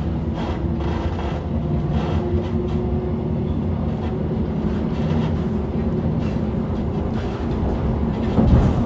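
Interior of a moving city commuter train: a steady low rumble of wheels on track with a faint hum from the drive. Near the end a louder low jolt stands out.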